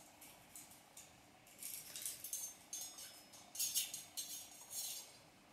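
Light clicks and rustling of film being fed by hand into the metal film path and sprocket of a Meopta Optilux projector, in an irregular run from about a second and a half in until near the end.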